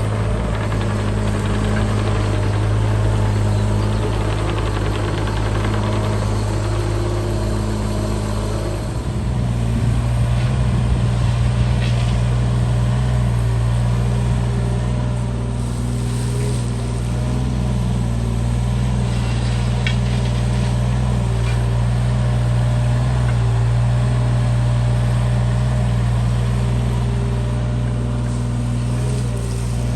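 Doosan DX27z mini excavator's diesel engine running steadily; about nine seconds in, its note steps up slightly in pitch and gets a little louder.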